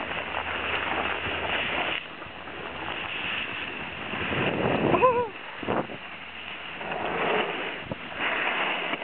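Snowboards sliding and scraping down snow, with wind rushing over the microphone in uneven surges. About halfway through, a short pitched call that rises and falls cuts through and is the loudest moment.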